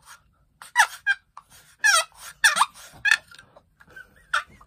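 Chalked wooden box turkey call being worked by hand, the lid scraped across the box's edge in about six short, squeaky, raspy strokes that imitate a turkey's calls.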